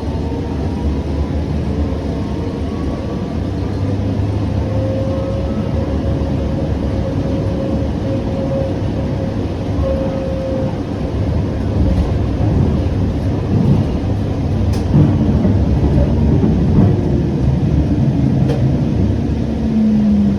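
Siemens S700 light rail car running between stations, heard on board: a steady rumble of wheels on rail with a motor whine that holds its pitch and then glides, and a few sharp clicks from the track in the second half.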